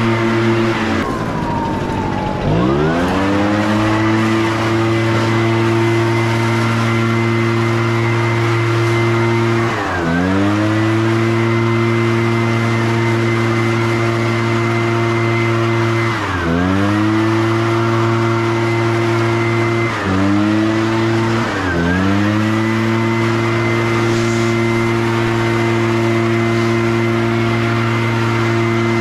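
Leaf blower engine running at full throttle with a steady note. About a second in the throttle is let off and the pitch falls, then climbs back up; later the throttle is briefly dipped and brought back up four more times.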